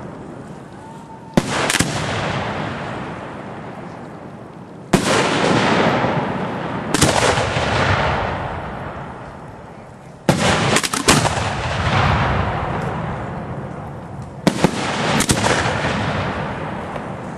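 Aerial fireworks going off in a display: about nine sharp bangs, several in quick pairs. Each bang is followed by a long echoing decay that fades over a few seconds.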